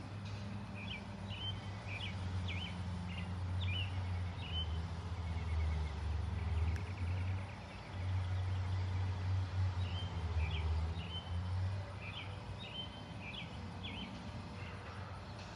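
A steady low rumble, with small birds chirping in two short runs of quick calls, one near the start and one about two-thirds of the way through.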